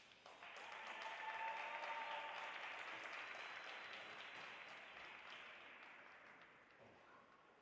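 Audience applauding, swelling quickly to its peak and then fading out over several seconds.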